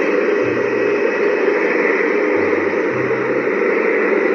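Single-drum road roller's diesel engine running close by: a steady rushing noise with a low hum that comes and goes several times.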